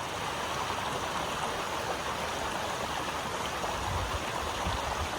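Steady rush of flowing water, with a few low rumbles about four seconds in.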